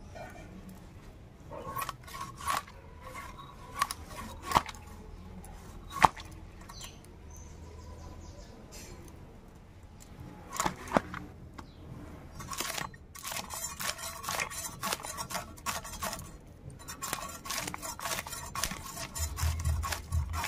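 Scales being scraped off a whole katla fish against a boti blade: a few separate scrapes and clicks at first, then, from about two-thirds of the way in, a quick continuous run of rasping scrapes.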